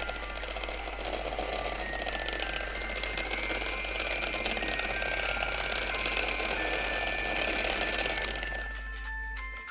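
Handheld electric mixer running steadily, its twin beaters creaming butter and brown sugar in a bowl; it stops near the end. Light background music with short notes plays underneath.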